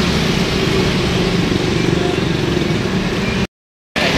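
Steady roadside traffic noise with vehicle engines running, cutting out completely for about half a second near the end.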